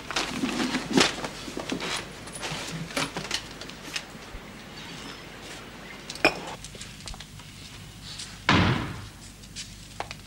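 Light clicks and clatter, then about eight and a half seconds in a door slams shut once, heavily, with a short ring after it.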